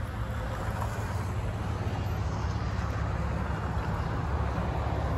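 Steady road traffic from a multi-lane highway, cars passing over a constant low engine rumble.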